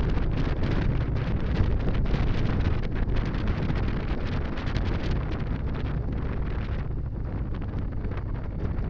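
Wind buffeting the camera microphone on a moving cruiser motorcycle, with the bike's engine running low underneath. The wind noise eases about seven seconds in as the bike slows.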